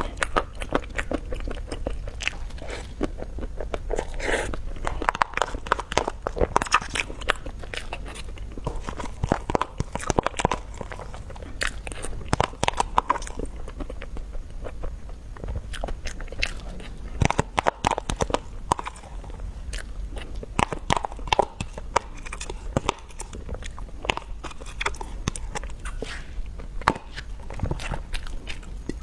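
A person biting and chewing food, with many small sharp clicks and crackles coming irregularly throughout.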